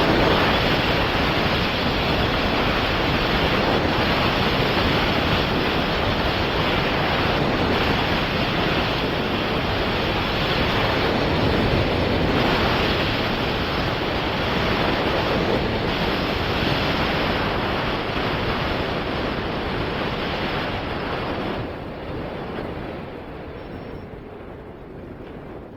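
Steady wind rush over the microphone and skis hissing on snow during a downhill ski run. The noise drops about 22 seconds in and fades toward the end.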